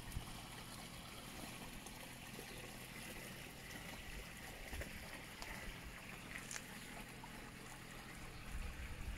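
Water trickling faintly and steadily in a small stone-lined garden stream.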